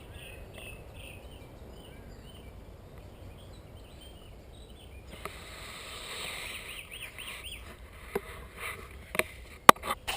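Small birds chirping over and over in quick short notes, with a fast run of repeated chirps past the middle. Several sharp knocks come near the end, and one of them is the loudest sound.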